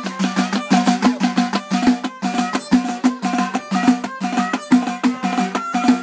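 Moroccan folk percussion: hand-held frame drums and a small clay goblet drum (taarija) beaten in a fast, steady rhythm. A violin plays short repeated notes over the drums.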